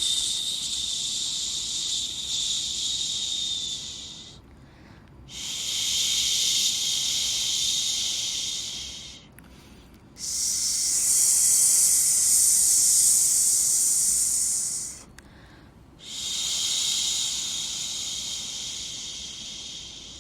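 Baby-sleep white noise made of long high-pitched 'shhh' hisses, four in a row, each lasting about four to five seconds with a pause of about a second between them.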